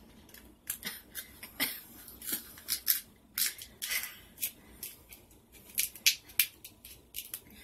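King crab leg shell being cut with kitchen scissors and cracked apart by hand: an irregular run of short, sharp snips and cracks, two or three a second.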